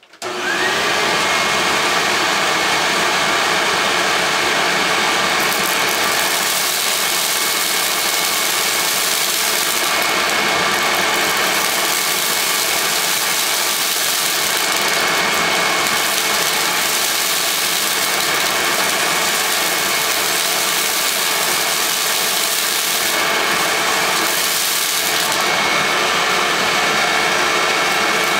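Hoover WindTunnel self-propelled bagless upright vacuum (model U6630) switched on: its motor spins up with a rising whine in the first second, then runs steadily with a high whine.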